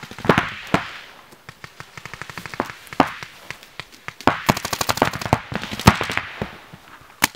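Paintball markers firing in rapid strings of sharp pops, several runs of shots with short gaps between them.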